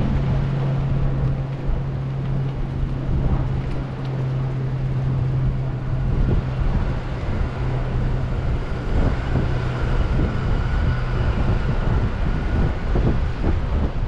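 Wind buffeting the microphone, over the rumble of bicycle tyres rolling across wooden pier planks, with a steady low hum that fades near the end.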